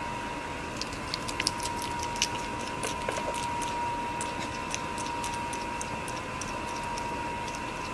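Irregular small clicks and smacks of a pet hedgehog chewing food given from tweezers, over a steady hiss and a thin high whine.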